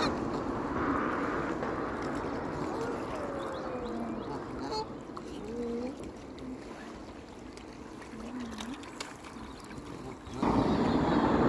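Outdoor pond-side ambience: a steady low rumble and hiss, with a few faint short gliding tones in the middle. About ten seconds in, a much louder rush of noise starts suddenly.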